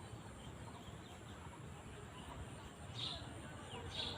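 Faint outdoor background noise with two short, high bird chirps about a second apart near the end.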